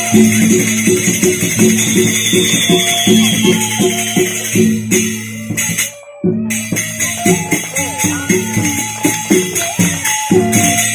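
Traditional percussion music played for a Sasak peresean stick fight: a fast, even beat of about three strokes a second over a sustained low hum, with jingling cymbals on top. It cuts out briefly about six seconds in, then resumes.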